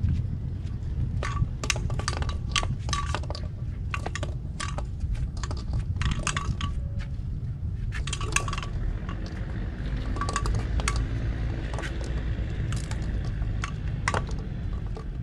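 Wind rumbling over the microphone, with many scattered sharp clinks, some ringing briefly, coming irregularly through the whole stretch.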